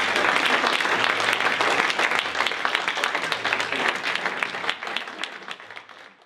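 A roomful of people applauding, many hands clapping together; the clapping fades away near the end.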